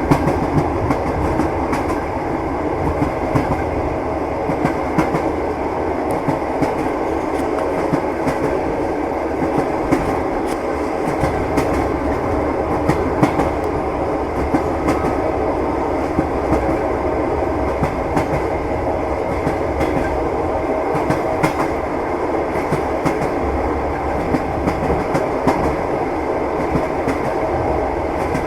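Train wheels clattering over the rails: a steady rolling noise with frequent sharp clicks and knocks from the wheels and rail joints, the train running at an even speed.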